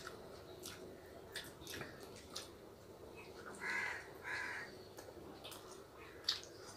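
A crow cawing twice, two short harsh calls close together past the middle. Around them are faint mouth clicks and smacks of people chewing food.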